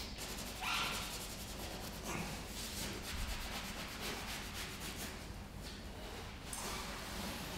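Scouring pad scrubbing the wet whitewall of a rubber tyre, a steady rubbing made of many quick strokes, as the blue protective film is scrubbed off the whitewall.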